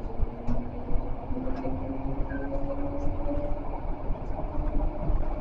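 Tram's electric traction motors whining as it accelerates, two tones rising slowly in pitch over a steady low rumble of wheels on rail, heard from the driver's cab.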